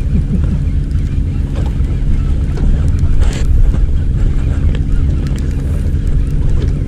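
Wind noise on the microphone aboard a small fishing boat at sea, over a steady low hum, with a short hiss about three seconds in.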